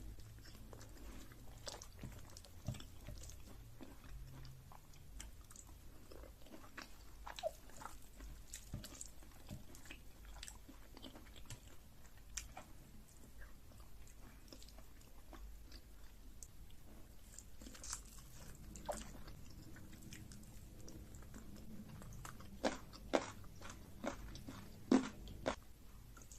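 A person eating: quiet chewing and wet mouth clicks, with a few sharper crunchy bites near the end.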